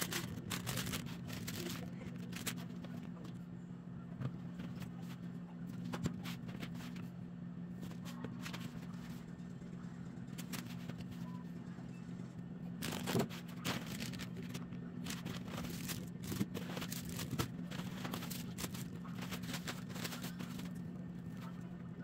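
Plastic grocery packaging crinkling and rustling, with small knocks and taps as packs and jars are handled and set down on a table, over a steady low hum.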